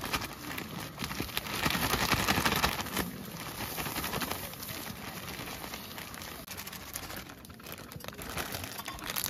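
Clear plastic food bag crinkling and rustling as hands squeeze and shake the sauced food inside it, loudest about one and a half to three seconds in.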